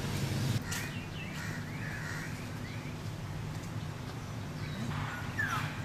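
Crows cawing, a few short calls near the start and again near the end, over a low steady hum.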